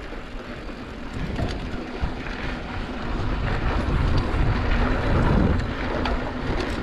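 Wind buffeting a camera microphone on a mountain bike riding dirt singletrack, with tyre noise on the dirt and short rattles and clicks from the bike. It grows louder a few seconds in.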